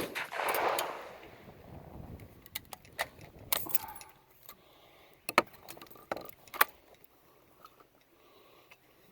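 A shotgun report dies away in an echo over the first second. Then comes a string of sharp metallic clicks and clacks as a break-action double-barrel 12-gauge shotgun is opened and its shells handled.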